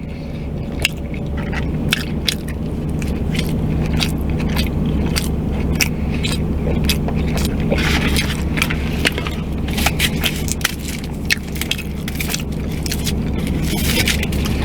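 Close-miked chewing of a small slider burger: wet mouth clicks and smacks through the whole stretch, over a steady low hum.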